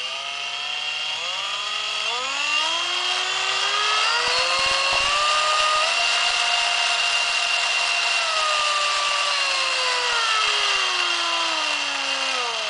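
Straus cordless drill's motor and gearbox running with no load, its whine rising in several steps, holding at its highest speed, then slowly falling away as the trigger is eased off. This is the test of the variable-speed trigger switch after cleaning its resistor track, and the speed now follows the trigger.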